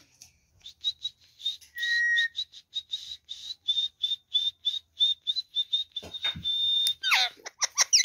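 Indian ringneck parakeet whistling: a rapid run of short, high chirps, several a second, with one longer held note about two seconds in, then falling whistled calls near the end.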